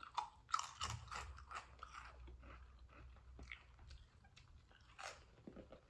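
Barbecue potato chip bitten off and crunched between the teeth, then chewed with sharp crackling crunches that come thick in the first two seconds and thin out, with another burst of crunching about five seconds in.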